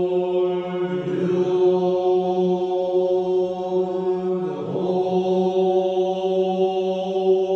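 Tibetan Buddhist chanting in Tibetan: a voice intones long, held notes at a steady pitch. The sound of the line shifts about a second in and again around five seconds in.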